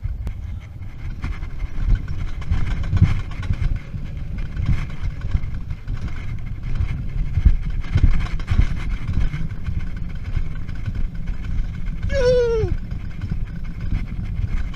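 Alpine coaster sled running down its metal rails: a steady low rumble with irregular knocks and rattles. About twelve seconds in, a short whoop that falls in pitch.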